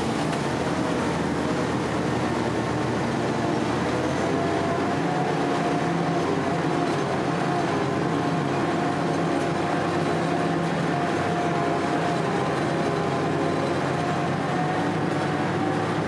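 Army duck (DUKW amphibious truck) driving along a gravel track, heard from on board: its engine runs steadily with a hum of several held tones over a rumble of tyres and body.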